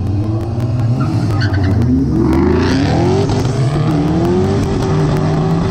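Two cars launching hard from a standing start in a street drag race. The tires squeal briefly about two seconds in, then the engines rev up through the gears, the pitch climbing and dropping back at each shift.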